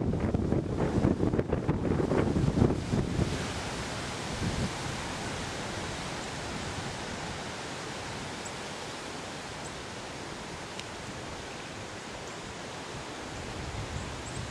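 Strong wind gusting over the microphone, heavy buffeting for about the first three seconds, then settling to a steady, quieter rushing hiss.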